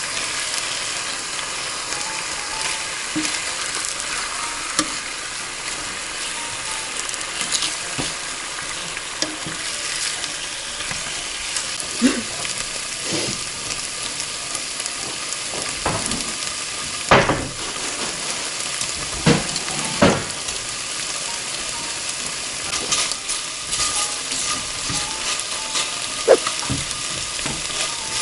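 Marinated pork galbi sizzling steadily in a frying pan, with metal tongs knocking and scraping against the pan now and then as the meat is turned.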